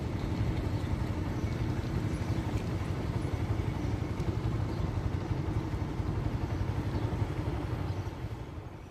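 Street traffic of motorbikes: a steady engine hum that fades near the end.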